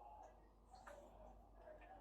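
Near silence: room tone with a couple of faint clicks.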